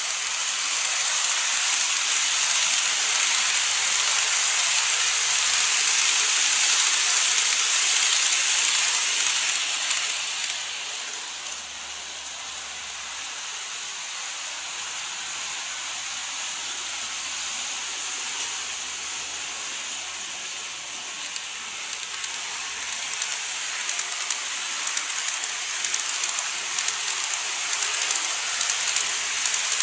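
Model train running on the layout's track: a steady hissing rattle of wheels and motor. It is loudest in the first ten seconds, drops, then grows again near the end as the train comes past close by.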